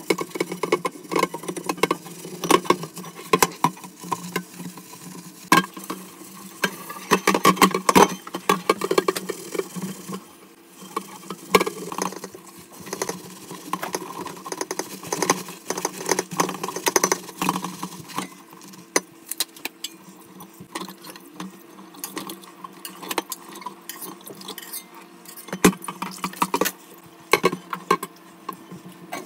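A stainless steel pot being scrubbed and rinsed in a stainless steel sink: irregular metal clanks, knocks and scrapes against the sink, with sloshing water.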